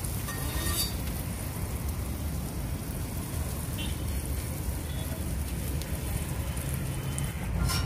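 An omelette sizzling in butter on a large flat iron tawa, over a steady low rumble. A steel spatula scrapes the griddle briefly about half a second in and again just before the end.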